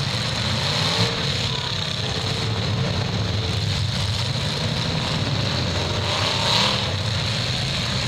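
Demolition derby cars' engines running and revving together in a steady din, with a short sharp knock about a second in and a louder swell of revving about six and a half seconds in.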